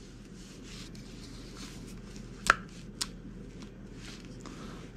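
Rubber anti-vibration mounting pins of a Noctua fan being pulled through the holes of a plastic fan shroud: faint rubbing and handling, with two sharp clicks about half a second apart near the middle.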